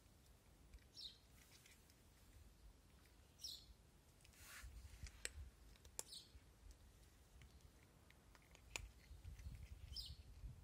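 Near silence with faint short chirps of a small bird every two to three seconds, and a few sharp clicks.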